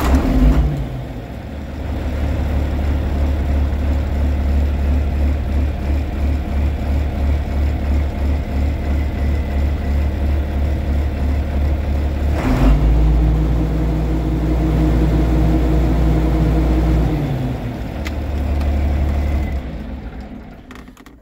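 John Deere 4430's six-cylinder turbo diesel running from cab, just fired up after an oil change to bring up oil pressure with fresh warm oil. It idles steadily, steps up to a higher steady pitch for about five seconds past the middle, drops back, then dies away near the end as it is shut down.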